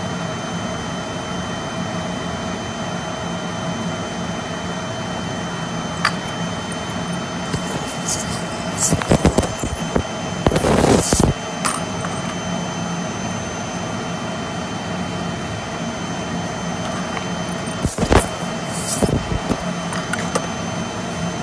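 Steady machine hum, with two spells of loud hissing from a spotting gun blowing at a stain on silk fabric: the first in the middle, lasting about three seconds, the second shorter, near the end.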